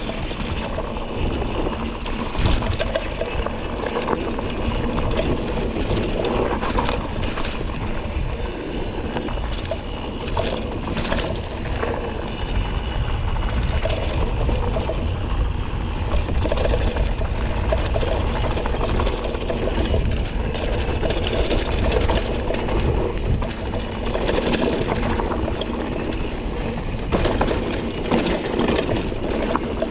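Mountain bike descending a trail at speed: a steady rumble of wind on the microphone, mixed with tyre noise and the bike rattling, with occasional sharp knocks as it hits bumps.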